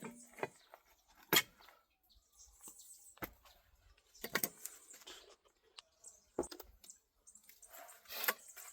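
A handful of sharp, irregular clinks and knocks of a hand tool striking stone, about five strikes with faint scraping between, as stones are chipped out to level the ground.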